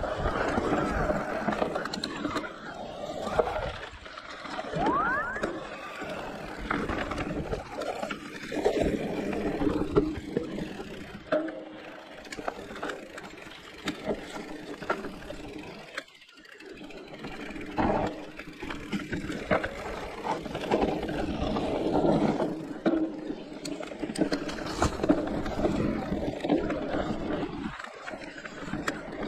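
Giant Reign E+ enduro e-mountain bike ridden down a trail: tyres rolling over dirt and roots, with the frame and chain rattling and many short knocks. A brief rising squeal about five seconds in.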